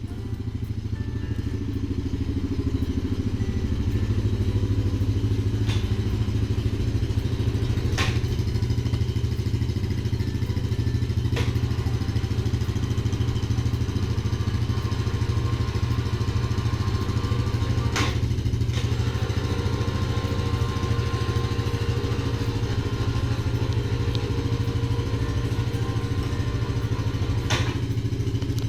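A vehicle engine running steadily under way, building up over the first few seconds, with a few sharp knocks or rattles from the ride.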